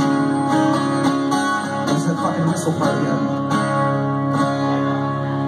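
Two acoustic guitars playing together live.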